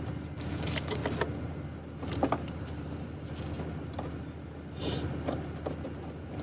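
Metal hand tools clinking and rattling as they are handled, with scattered sharp clicks over a steady low hum and a brief hiss about five seconds in.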